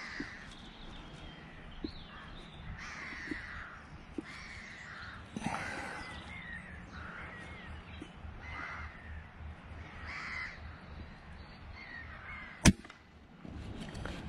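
Rooks cawing over and over, about a call a second, then a single sharp air rifle shot near the end as the shooter takes a perched rook.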